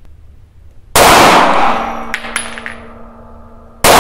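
Two 9x19 pistol shots from an HK SFP9, fired one-handed almost three seconds apart. Each is a sharp, very loud report followed by a long echoing decay, and a few faint clicks follow the first shot.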